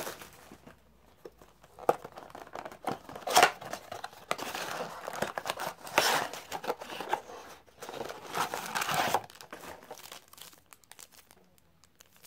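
Wrestling trading-card pack wrapper being torn open and crinkled by hand, in bursts of rustling with sharp crackles, dying down after about nine seconds.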